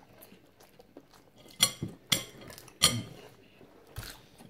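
Tableware knocking and clinking during a meal: three sharp knocks close together about a second and a half in, and a lighter one near the end.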